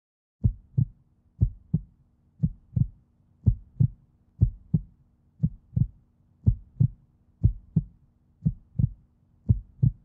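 A slow heartbeat sound effect: paired low thumps, one pair about every second, ten pairs in all, over a faint steady hum.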